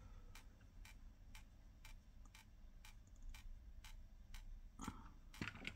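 Faint, evenly spaced ticking, about two ticks a second, with a brief soft handling rustle near the end.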